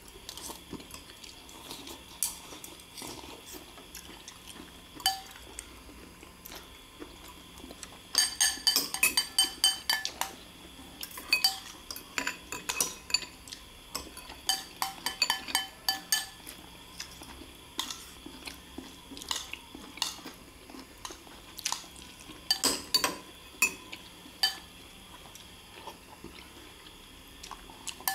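Metal spoons and forks clinking and scraping against ceramic rice bowls and a plate as people eat. The clinks come in irregular runs of quick taps, busiest about a third of the way in, with short ringing after the sharper hits.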